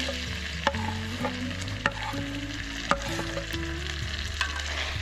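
Chopped peppers and chicken sizzling as they fry in a pan on a camping gas grill. Sharp clicks of a plastic spatula scraping and tapping as peppers are pushed off a wooden board into the pan, three louder ones about a second apart.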